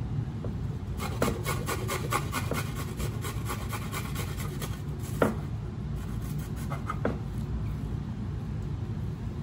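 A garlic clove rubbed against a stainless-steel hand grater, making a run of quick rasping strokes from about one second in to about five. A sharp knock about five seconds in is the loudest sound, and a lighter one follows near seven seconds, over a steady low hum.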